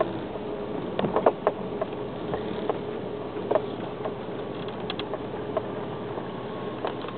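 Compact SUV rolling slowly over a dirt and gravel driveway, heard from inside the cabin: a steady low drive hum with scattered sharp clicks and knocks, a small cluster of them about a second in.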